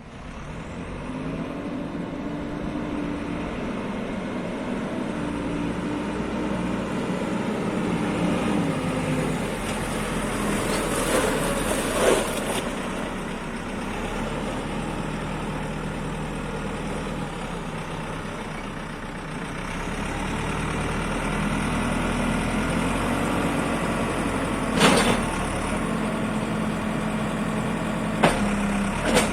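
Diesel engine of a JCB 4CX backhoe loader running, its speed rising and falling several times. Three sharp knocks, about 12, 25 and 28 seconds in, stand out above the engine.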